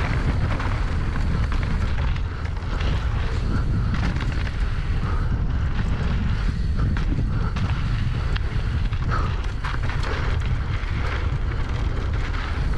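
Mountain bike descending a dirt jump trail at speed: steady wind rumble buffeting the microphone, with tyre noise on dirt and frequent sharp clicks and rattles from the bike over the rough ground.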